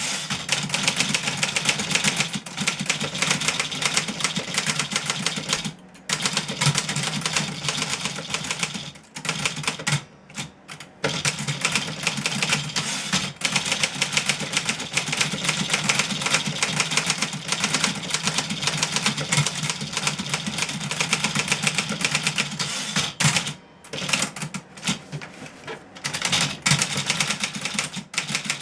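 1963 Remington Model 11 manual portable typewriter being typed on fast: a rapid run of key and typebar strikes, broken by a few short pauses.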